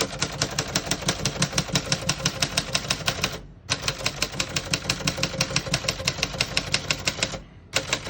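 Keys of a 1965 Remington Premier manual portable typewriter struck in rapid, even succession, about eight or nine clacks a second, with two brief pauses.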